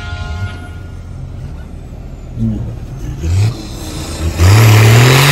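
Off-road 4x4 vehicle's engine revved in short bursts, each rising in pitch. The last and loudest, about a second long near the end, comes with a loud rushing noise.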